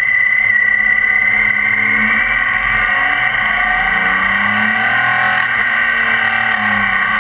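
BMW K 1600 GTL's inline six-cylinder engine running steadily while the motorcycle is ridden at speed, its pitch shifting up and down a little around the middle.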